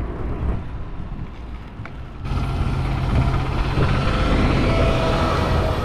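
Road noise of a bicycle ride picked up by a GoPro: wind and tyre rumble. About two seconds in it suddenly turns louder and hissier, with a faint steady hum.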